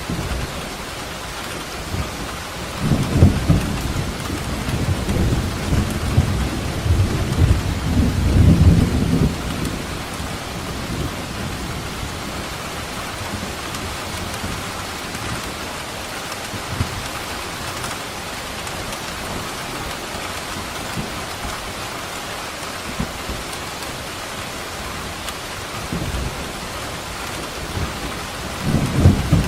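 Steady heavy rain with rolls of thunder: a long low rumble about three seconds in that lasts some six seconds, and another beginning near the end.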